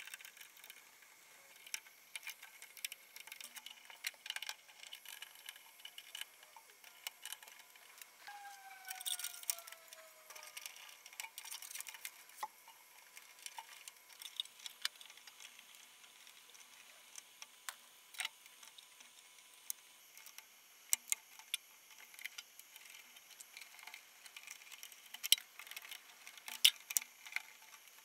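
Faint, scattered clicks, taps and light rattles of hands working crimped wire connectors and terminals inside a steel electrical enclosure, with a few sharper clicks near the end.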